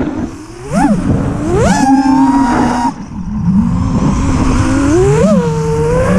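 7-inch FPV quadcopter's four 2508 1200 kV brushless motors with 7-inch props, heard from the onboard camera, whining and changing pitch with throttle through flips and dives. The pitch falls away to a low throttle just after the start and again about three seconds in, with quick sharp punches near one second and about five seconds in.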